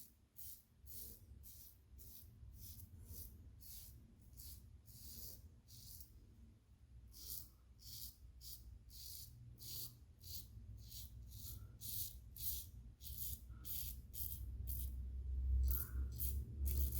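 Double-edge safety razor (King C. Gillette, Shark Super Chrome blade) scraping through lathered stubble in short repeated strokes, about two a second, with a brief pause partway through.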